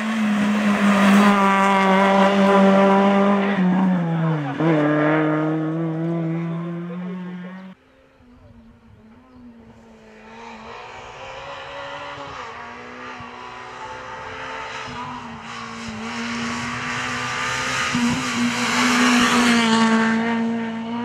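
Rally car engine at high revs, passing close, with the note falling as the driver lifts off about four seconds in. The sound breaks off abruptly near eight seconds. A second pass follows, with the engine growing steadily louder to a peak near the end.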